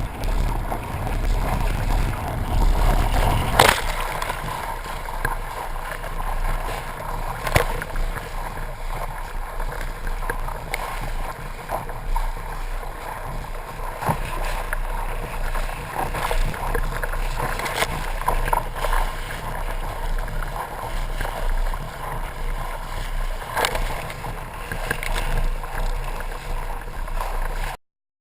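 Water rushing and sloshing along a sailboat's hull as it sails, with scattered splashes. Wind buffets the microphone with a heavy rumble for the first few seconds. The sound cuts off suddenly near the end.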